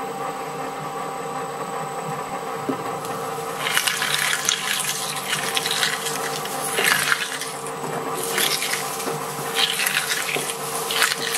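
Twin-shaft shredder running with a steady hum. From about three and a half seconds in, repeated bursts of crushing noise come as vegetables are caught between its rotating steel cutter blades.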